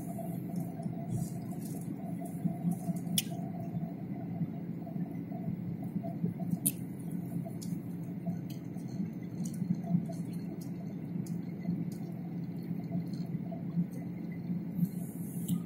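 Steady cabin noise of a jet airliner during its descent to land: a low rumble of engines and airflow with a steady hum, and a few sharp clicks, the loudest about 3 s and 7 s in.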